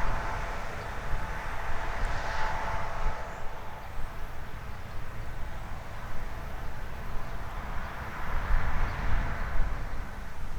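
Harvest machinery running in a grain field, a continuous drone with a faint steady whine, over a low, uneven rumble. It swells a couple of times as a machine works nearer.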